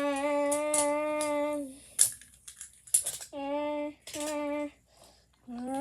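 A child's voice imitating a train horn: a long held 'woo' note, then two short ones, each at a steady pitch. Two sharp clicks come between the long note and the short ones.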